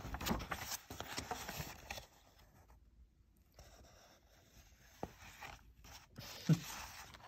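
Pages of a picture book being turned by hand: paper rustling and sliding, with a short gap about halfway through and a small tap near the end.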